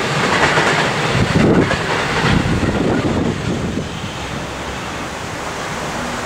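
Gusty wind buffeting the microphone, over the rumble of a passing freight train that fades within the first two or three seconds. What remains is a steady rush of wind.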